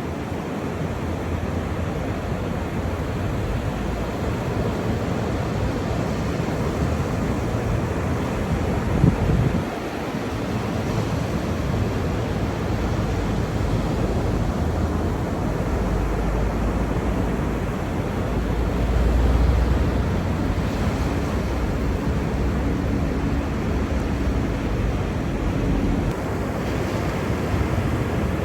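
Ocean surf washing steadily, with wind buffeting the microphone and a brief knock about a third of the way in.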